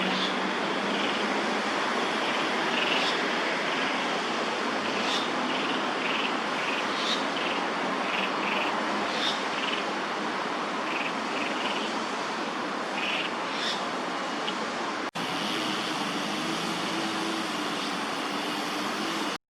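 A steady rushing background hiss with short, high chirps of small birds repeating every second or so. It breaks off abruptly about 15 s in and resumes as a similar hiss with a faint low hum underneath.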